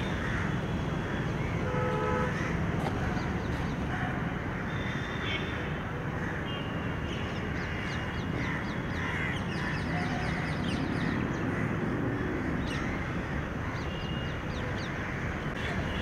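Crows cawing now and then over a steady low background rumble.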